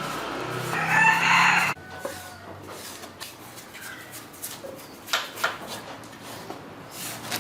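A rooster crowing once, loudest about a second in, over a steady low hum that cuts off abruptly soon after. Then a quieter stretch with a few sharp taps or clicks.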